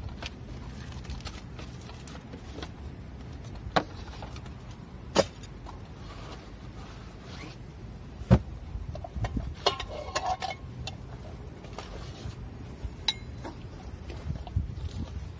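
Camp cooking gear being handled and set down: scattered sharp knocks and clicks, the loudest about eight seconds in, and a brief run of light clinks around ten seconds, over a steady low background rumble.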